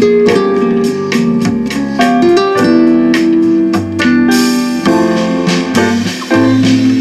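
Bossa nova instrumental with piano and guitar, played back through a pair of Fostex FE108Super 10 cm full-range speakers whose hardened cloth surrounds have been softened.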